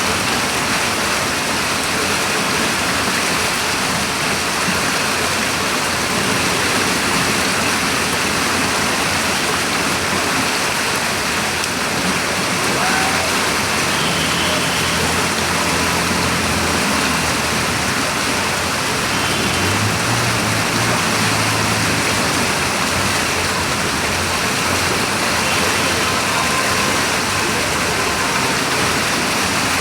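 Steady, loud rush of water without a break. A faint low hum rises under it about halfway through and fades a few seconds later.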